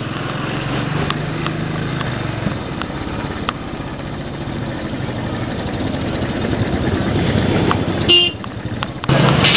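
Royal Enfield Bullet 500 single-cylinder engine running at low speed in street traffic, heard from the rider's chest pocket. A vehicle horn toots briefly near the end.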